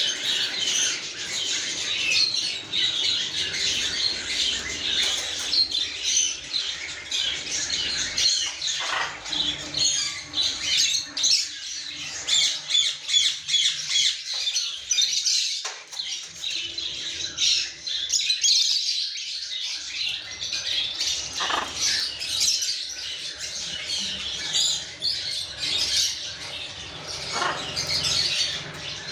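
Parrots squawking and chattering, many short overlapping calls without pause, with a few louder, harsher squawks now and then.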